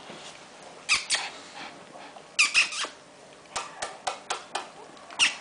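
West Highland white terrier giving a run of short, sharp, high-pitched yaps in play, about a dozen in quick bunches.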